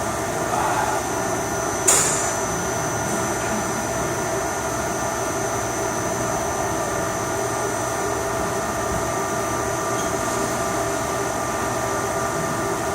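HS-1000 CNC machine running with a steady hum of several even tones. A single sharp click comes about two seconds in.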